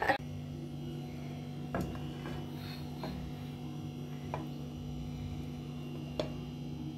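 A steady low electrical hum, with a few faint clicks as a spatula scoops pilau rice onto a plastic plate.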